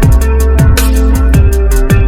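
Electronic background music in a drum-and-bass style: a steady deep bass under punchy kick drums about every two-thirds of a second, with crisp hits between them.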